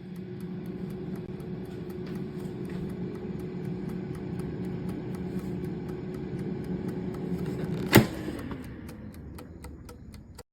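LATURE 4.2 QT air fryer running, its fan giving a steady hum while the mechanical knob timer ticks faintly and evenly. About eight seconds in, a sharp loud click comes as the timer runs out, and the fan winds down with a falling tone.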